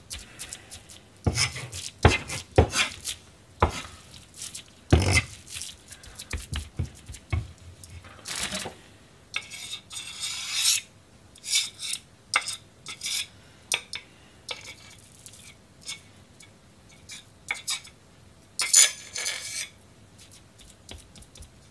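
A Chinese cleaver chopping and tapping minced pork-and-vegetable gyoza filling on a cutting board in scattered single strokes. Then it scrapes the filling together and off the blade, with a rasping scrape about ten seconds in and another near the end.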